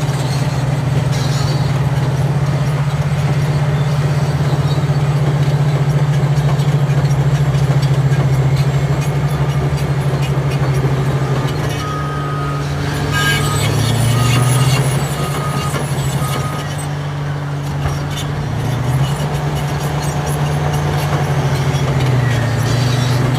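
Bulldozer's diesel engine running steadily with a loud low hum that shifts pitch a few times as it works. A series of short, evenly spaced high beeps sounds about halfway through.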